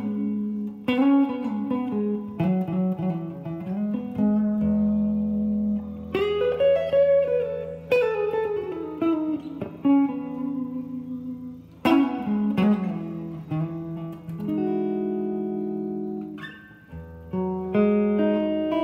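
Electric guitar played through a guitar amplifier with a clean tone: plucked single notes and chords, with notes sliding up and down in pitch about six to ten seconds in, then longer held chords ringing out near the end.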